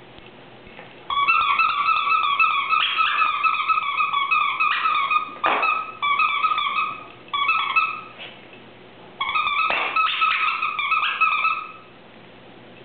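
Squeaker in a plush dog toy squeaking over and over as a dog chews it, in long runs of rapid squeaks at one steady pitch, with short breaks around the middle and a few clicks.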